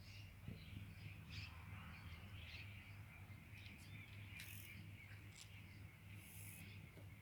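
Faint, scattered bird chirps and short calls, with a low steady hum underneath.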